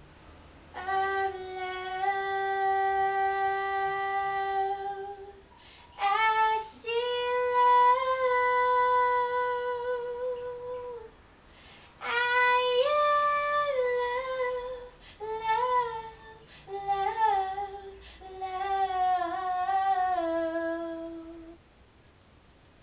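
A woman singing a slow melody alone, in long held notes, in about six phrases with short breaths between. The later phrases are shorter, with small turns in pitch, as she works out a vocal line for a song.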